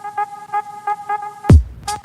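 Background hip hop beat: a short synth riff repeating about four notes a second. About one and a half seconds in, a deep falling 808 bass hit and sharp drum hits come in.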